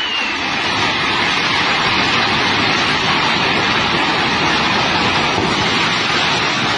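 Swollen Swat River in flood, its floodwater rushing past as a loud, steady, unbroken noise.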